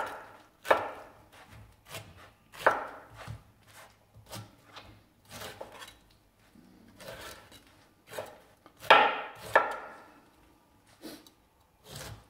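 Chef's knife cutting the brown eyes out of a peeled pineapple on a wooden cutting board: irregular slicing cuts and knocks of the blade on the board, roughly one a second, the loudest two about nine seconds in.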